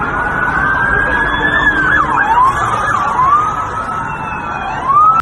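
Several police sirens sounding at once over street noise, their pitches sliding up and down, some slowly and some in quicker sweeps; they cut off abruptly at the end.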